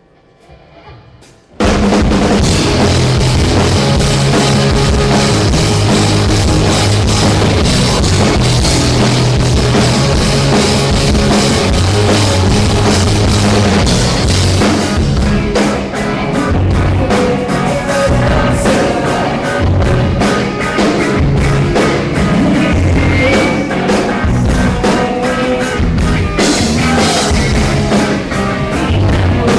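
Rock music with a full drum kit and bass, starting abruptly about a second and a half in and running loud and steady.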